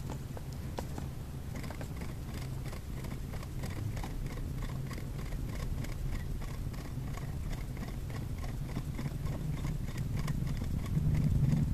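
Felt-tip marker dabbing and ticking on a paper disc about twice a second as figure heads are dotted in, over the steady low hum of the turning disc's motor, which grows louder near the end.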